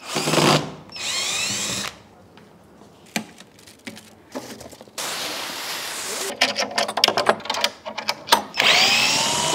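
Cordless drill-driver running in several short bursts, backing screws out of a wooden crate lid, its whine rising as it spins up, most plainly near the end. Between the runs come a string of sharp clicks and knocks.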